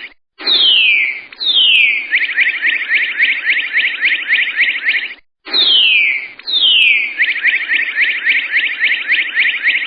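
A high chirping animal call, played twice in an identical loop: two quick falling whistles, then a fast chirping trill of about eight notes a second.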